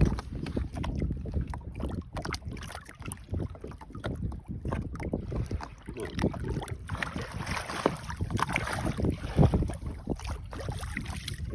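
Wind buffeting the microphone in a fishing boat, with a string of short knocks and rustles of handling on the boat.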